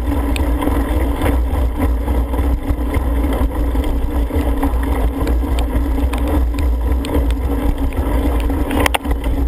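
Steady rumble of wind buffeting a helmet-mounted camera's microphone, mixed with tyre noise on wet pavement as a cyclocross bike is ridden at race pace, with one sharp click near the end.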